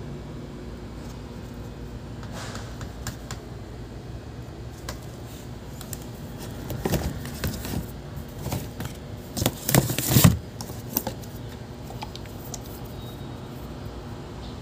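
Plastic oil and brake-fluid bottles handled and knocked against one another, with scattered clicks and a burst of clattering knocks from about seven to ten seconds in, over a steady low hum.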